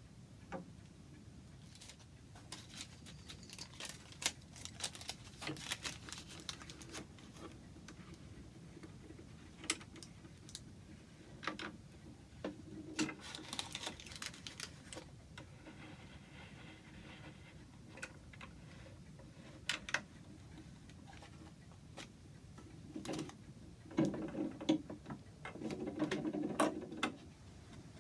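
Wooden clock-case parts being handled and worked: scattered light clicks and knocks of wood and tools, with a spell of rubbing and scraping about three-quarters of the way in.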